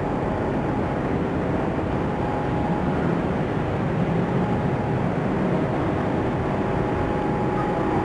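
Steady low background rumble with a faint steady hum in it and no distinct clicks or knocks.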